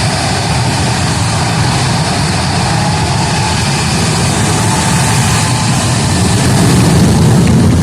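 F/A-18 Super Hornet jet engines in afterburner during a formation takeoff: loud, steady jet noise that grows louder near the end.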